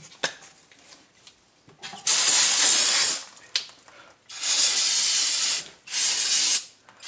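Aerosol brake cleaner spraying in three hissing bursts: one of about a second, a longer one, then a short one. A few faint clicks come before the first burst.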